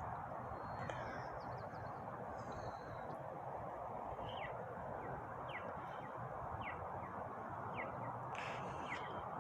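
Wild birds calling at dawn: a bird repeats short, falling whistled notes about once a second, with a few higher chirps and a fuller, louder call near the end, over a steady rushing background.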